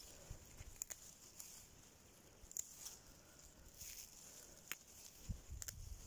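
Faint rustling of leafy parsley plants with a few soft, separate clicks as sprigs are picked by hand.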